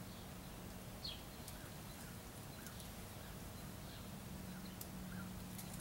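Faint outdoor background with short, high bird chirps scattered through it and a low steady hum underneath.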